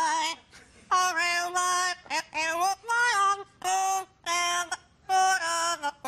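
Amazon parrot singing a song in a human-like voice: held notes in about five short phrases with brief breaks between them.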